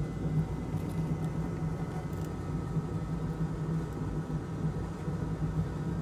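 Steady whir and hum of a small fan motor running at the workbench, unchanging throughout.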